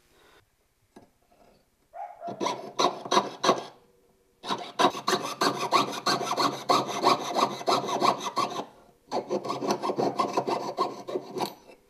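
Jeweller's saw cutting through sheet silver on a wooden bench pin: rapid rasping back-and-forth strokes, starting about two seconds in and coming in three runs with short pauses between, the longest in the middle.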